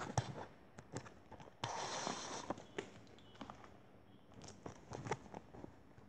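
A thick cardboard board book being handled and opened: scattered light taps and clicks, with a short rustle about two seconds in.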